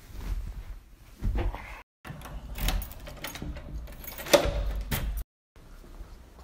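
A door being unlocked and opened: handling thumps and rattles, with a sharp metallic latch click about four seconds in, the loudest sound. The sound cuts to dead silence twice, briefly.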